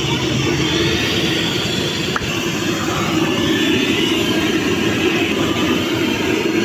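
Steady roadside traffic din, with a single sharp click about two seconds in.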